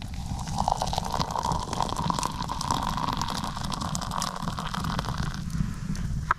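Water pouring from a soot-blackened camp kettle into a mug, a steady splashing pour that stops about five seconds in. A short light knock near the end as a wooden lid is set on the mug.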